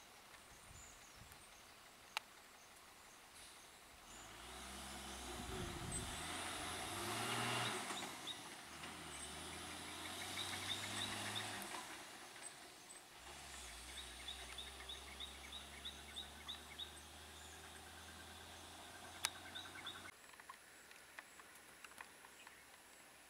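Heavy box truck's diesel engine pulling away, swelling about four seconds in and stepping in pitch as it goes up through the gears, then cutting off abruptly near the end. A sharp click sounds about two seconds in and another near the end, with faint repeated bird or insect chirps.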